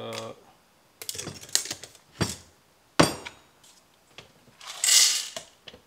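Whole coffee beans clicking and clattering as they are scooped into a paper cup, with a sharp knock about three seconds in. Near the end the beans are poured into the Breville Barista Express grinder's bean hopper in a short rattling rush.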